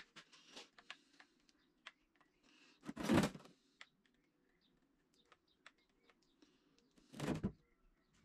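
Small clicks and taps of hot-glue-gun work on a wooden block at a workbench, with two louder bumps about three and seven seconds in.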